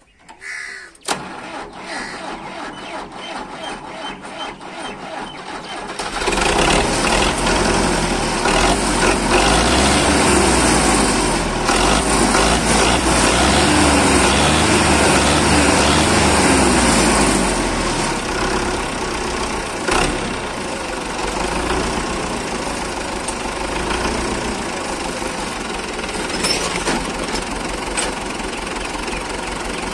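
Belarus 510 tractor's diesel engine being cranked in a rapid, even rhythm for about five seconds, then catching and running loud and fast for about twelve seconds before settling to a steady idle. The hard start points to an air lock in the fuel system.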